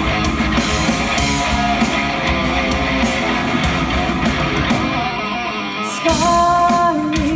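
Live rock band playing an instrumental passage: electric guitar over bass and drums. About five seconds in the cymbals drop out briefly, and a steady held note sounds near the end.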